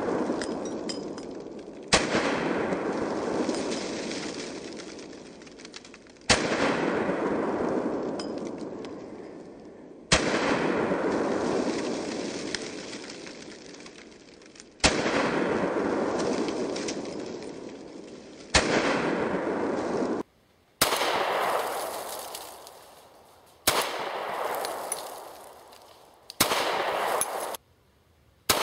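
A string of about eight .45 pistol shots from an A.T.I. FX45 Fat Boy compact 1911-style pistol, played back slowed down, so each shot starts with a sharp crack and then stretches into a long fading rumble lasting a few seconds before the next.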